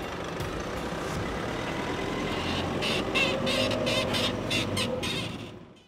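Nissan Navara pickup driving slowly away along a forest track, its engine running steadily with a string of sharp crackles in the middle. The sound fades out just before the end.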